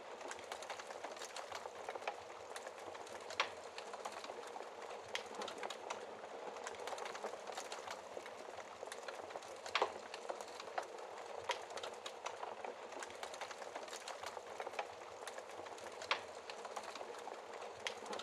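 Wood fire in a fireplace crackling: a steady hiss with many irregular snaps and pops, the sharpest about three and a half seconds, ten seconds and sixteen seconds in.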